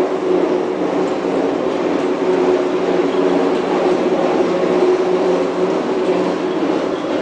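Steady industrial machinery noise with a constant mid-pitched hum.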